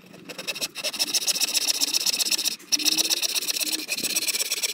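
Hand saw cutting across a wooden board: a steady, fast rasp of back-and-forth strokes through the wood, with a short break about two and a half seconds in.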